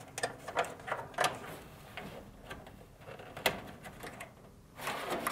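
Dryer wiring harness being pulled free of its plastic retainer clips: wires rustling against sheet metal, with a scattering of small plastic clicks, the sharpest about three and a half seconds in.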